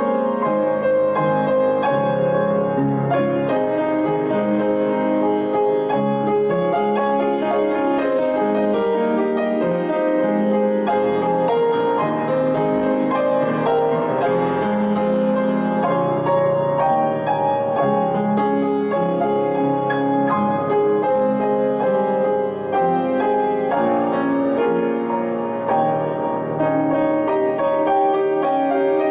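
Piano music, a steady flowing instrumental postlude of sustained chords and notes.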